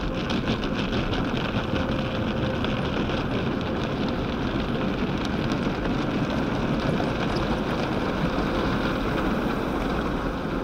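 Automatic car wash running around the car, heard from inside the cabin: a steady, even rushing of water spray and air against the body.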